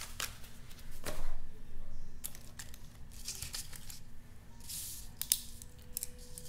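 Irregular rustling and scraping from things being handled on a desk, with a few light clicks, over a faint steady hum.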